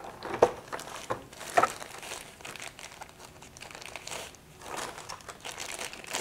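Clear plastic bag crinkling and rustling as a handheld radio is handled inside it and pulled out, with two sharp crackles in the first two seconds and softer rustling after.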